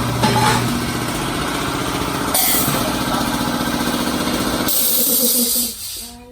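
A vehicle engine running at idle, with two bursts of high hiss about two and a half and five seconds in; the sound drops away near the end.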